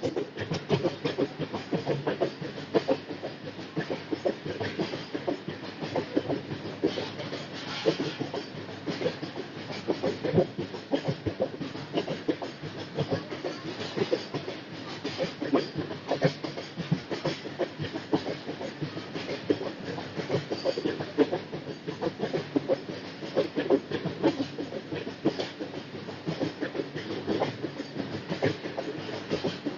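A train running through a station, its wheels clattering over the rail joints in a dense, continuous rapid clatter.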